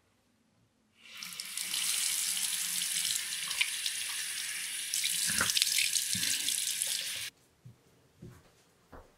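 A bathroom sink faucet running into the basin. The water starts about a second in, runs steadily for about six seconds with a dull knock partway through, then shuts off abruptly.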